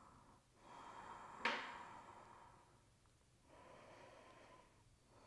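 Two faint, slow breaths, each about a second long, during a held stretch. A short sharp click about a second and a half in is the loudest sound.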